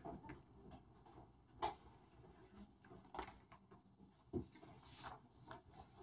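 Quiet room with a few faint, scattered clicks and soft rustles, and one small thump about four seconds in.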